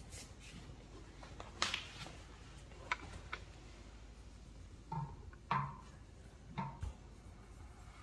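Footsteps of a priest walking across a church floor, with a few light knocks at irregular intervals over quiet church room tone.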